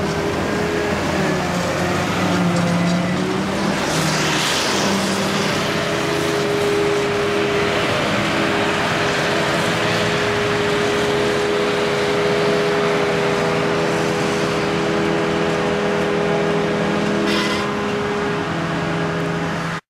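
Claas Jaguar self-propelled forage harvester working in grass, its engine and chopper giving a loud steady drone, with the tractor pulling the trailer alongside running too.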